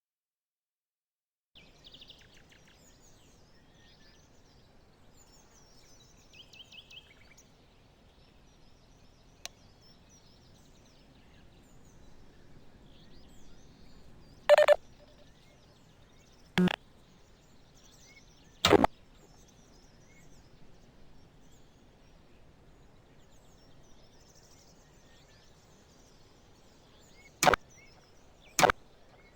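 Faint outdoor ambience with scattered high bird-like chirps, broken by five sharp, loud hits: three spaced about two seconds apart near the middle, the first of them longer with a ringing tone, and two more close together near the end.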